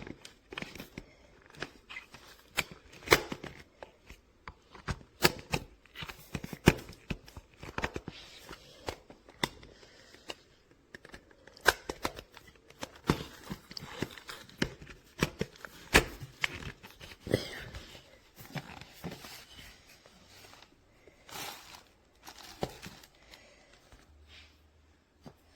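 Objects being handled by hand: irregular sharp clicks and taps with rustling in between, several a second at times.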